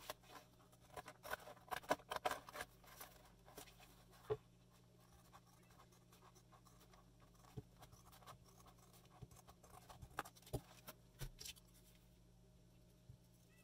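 Scissors cutting a strip from a thin plastic folder: a quick run of faint snips and scrapes in the first few seconds, then single snips every second or two.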